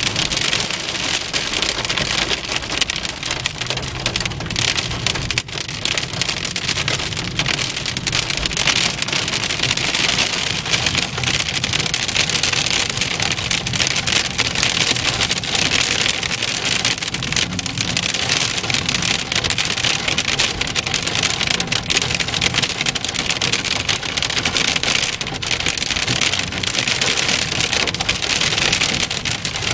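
Large hail pelting a moving car's roof and windscreen, a dense, steady rattling patter heard from inside the cabin, with the car's engine and tyres low underneath.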